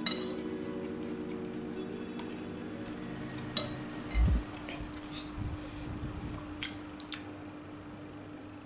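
A person chewing food close to the microphone, with a few sharp clicks of utensils and a dull thump, over a faint steady hum.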